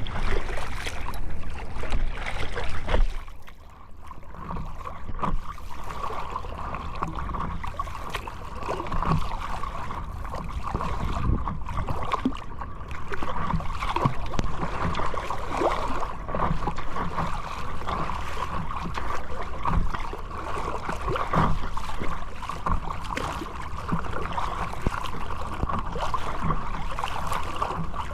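Underwater sound among feeding dolphins: water rushing over the microphone for about three seconds, then quieter water with a steady tone and many scattered short clicks, the dolphins' echolocation clicks.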